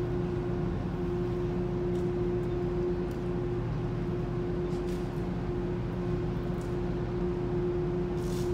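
Steady machinery hum of a moored ro-ro ferry running its engines, a constant drone with a low rumble beneath it, with a few faint ticks.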